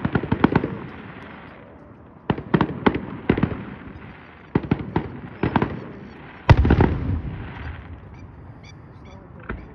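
Fireworks going off: clusters of sharp crackling bangs, with the loudest boom about six and a half seconds in, followed by a low rumbling tail, then a few fainter pops.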